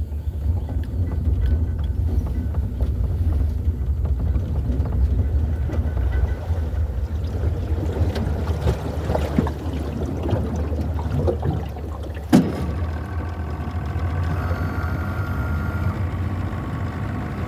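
An engine running steadily with a low droning hum, with a single sharp knock about twelve seconds in.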